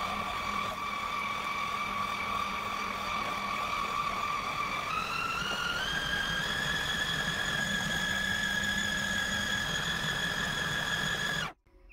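Food processor with a steel blade running to knead a gluten-and-tofu dough, its motor giving a steady whine. The whine steps up in pitch about five seconds in, then cuts off suddenly near the end.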